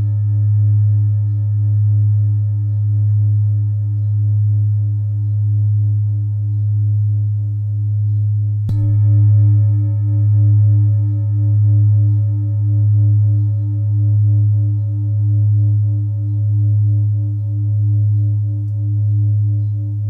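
A large Neptune–Saturn planetary-tone singing bowl, about 1.9 kg, rings with a deep hum and several higher overtones, its loudness wavering slowly up and down. It is struck again about nine seconds in, and the ringing swells and carries on.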